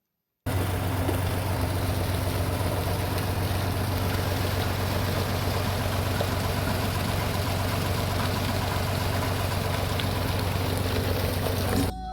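A steady engine running with a constant low hum under a hiss of noise, starting abruptly about half a second in.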